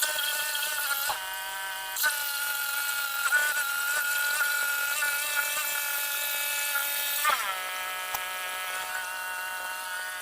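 Small gas engine of a portable bandsaw sawmill running steadily while the blade cuts through a log. The engine's pitch dips under load and recovers, about a second in and again near seven seconds.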